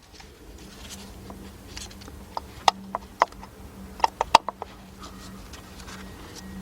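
Sharp plastic clicks and knocks of ignition coils and their connectors being handled and swapped between cylinders by hand, several in quick succession about four seconds in, over a faint steady hum.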